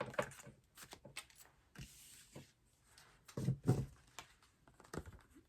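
Tarot cards being handled on a table: scattered soft clicks and taps, a brief rustle about two seconds in, and a few louder knocks around the middle and near the end.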